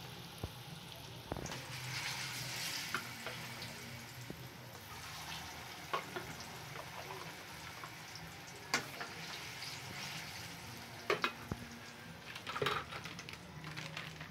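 Banana slices sizzling in hot oil in a wok, a steady frying hiss with a few sharp pops and crackles scattered through it.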